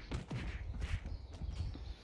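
A run of irregular soft thumps and scuffs, a few each second.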